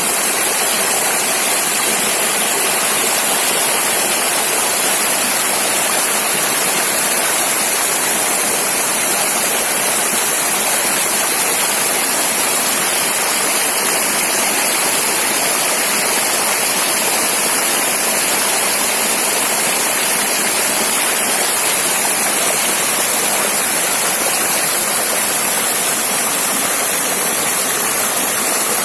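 A river flowing over stones: a loud, steady rushing of water that does not change.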